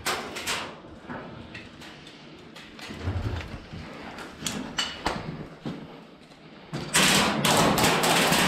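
Scattered sharp knocks and thumps, then a loud stretch of dense rustling and clattering noise starting about seven seconds in.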